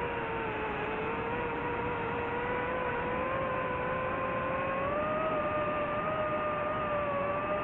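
DJI FPV drone's motors and propellers whining steadily in flight, the pitch wavering with the throttle and stepping up slightly about five seconds in.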